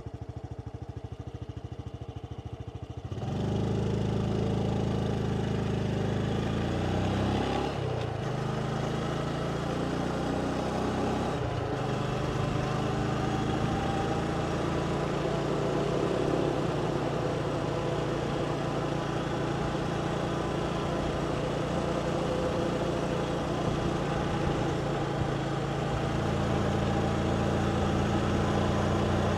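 Motorbike engine ticking over for a few seconds, then getting louder about three seconds in and running steadily along the road. Its pitch dips briefly about 8 and 12 seconds in.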